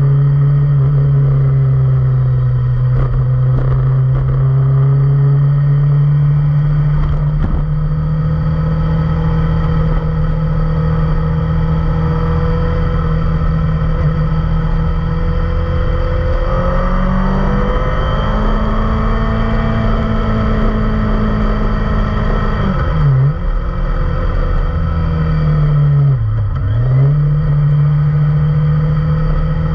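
Kawasaki Ninja ZX-25R's 249 cc inline-four engine running through an Akrapovic full-system exhaust, holding a steady note. The pitch rises about halfway through, and near the end the revs drop sharply and come back twice.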